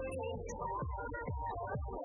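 Electronic music with a steady beat of low, falling bass thumps about twice a second under a synth melody.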